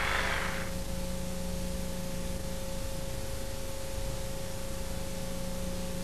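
Steady tape hiss and low hum from a blank stretch of VHS video cassette, with a thin steady tone through it. A louder noise dies away in the first second.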